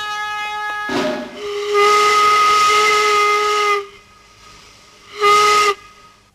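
Steam locomotive whistle blowing one long blast over hissing steam, then a short second blast about a second and a half later.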